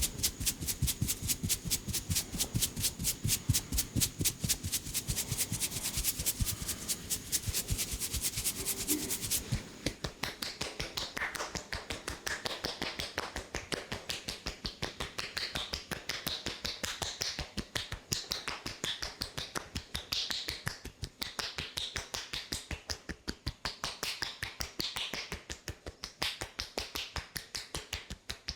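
Percussive massage: hands striking the body in rapid, even strokes, several a second. The strokes are crisp at first and turn duller about ten seconds in.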